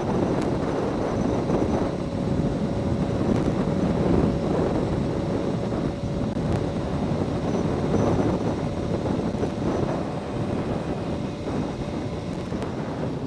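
Wind rushing over the microphone and the engine of a Yamaha R1 motorcycle running as it is ridden along, a steady, loud mix with a faint steady whine through the middle.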